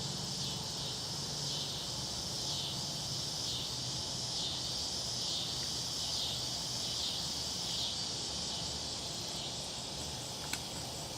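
Steady, high-pitched insect chorus that swells about once a second, with a faint low hum underneath.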